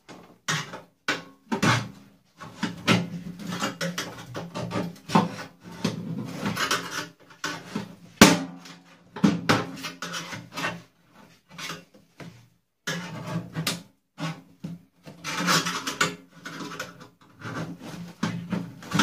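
Irregular clicks, knocks and scraping as the sheet-steel base of an upturned microwave is handled and prried at on a workbench, with a sharp knock about eight seconds in.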